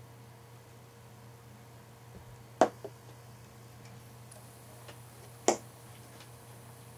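Wooden chess pieces set down on a chessboard: two sharp clacks about three seconds apart, the first followed by a lighter tap.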